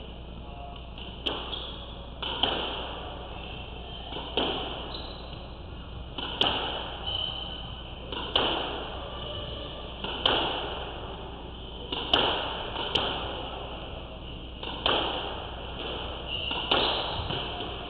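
Squash rally: the ball cracking off rackets and the court walls, one sharp echoing hit about every two seconds, twice in quicker succession.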